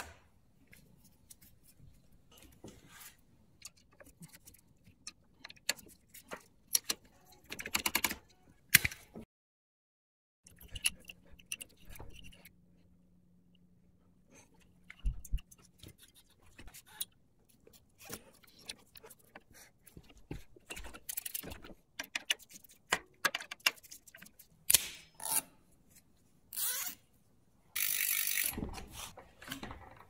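Intermittent clicks, light knocks and scrapes of hands working a bicycle brake cable and mechanical disc brake caliper, with a longer, louder rasp near the end.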